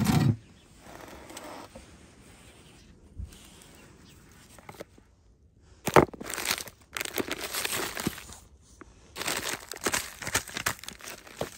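Frozen zip-top plastic bags of meat crinkling and crackling as they are handled and set into a plastic basin. A low thump comes right at the start and a sharp knock about six seconds in.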